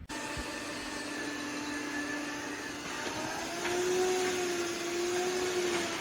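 iRobot Roomba Plus 405 robot vacuum-mop running: a steady motor whine over a hiss, its pitch rising slightly about three and a half seconds in.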